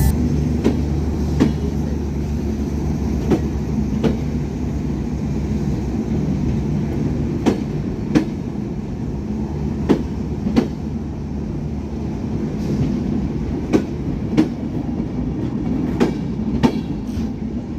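Bangladesh Railway intercity passenger coaches rolling past: a steady rumble of wheels on the track, with clickety-clack in pairs of sharp clacks every two to three seconds.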